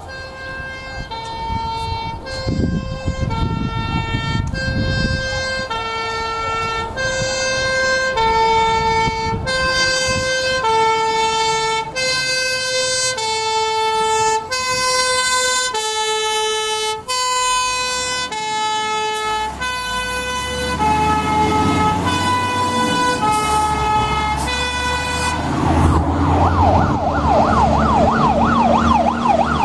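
Two-tone hi-lo siren of a Berliet 770 KB fire engine on an emergency run, stepping between a high and a low pitch about every 0.6 s. Its engine rises as it draws close about two-thirds through. Near the end a fast electronic yelp siren of a Star 244 fire engine takes over, sweeping up and down about three times a second over its engine.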